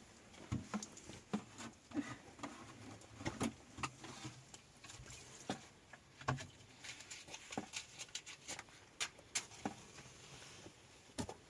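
Dry twigs and brushwood snapping and rustling as they are handled and laid for a fire: a scatter of irregular small cracks and clicks.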